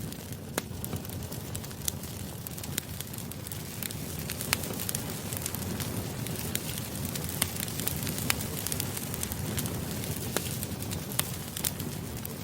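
Campfire crackling: a steady low rumble of burning wood with frequent sharp pops and snaps scattered through it.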